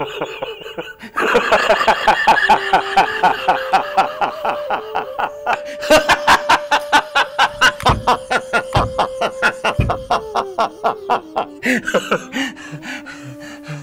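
A man laughing in a long, unbroken fit, rapid 'ha-ha' pulses about five or six a second, over a held flute melody of background music; the laughter fades near the end. Two dull thumps sound past the middle.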